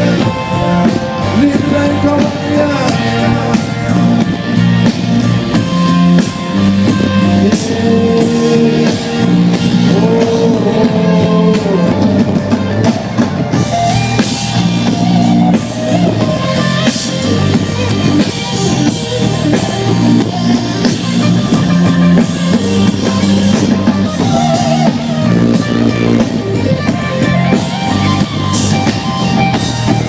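Live band playing through a large stage PA in an open-air amphitheater: drums, electric guitar and bass.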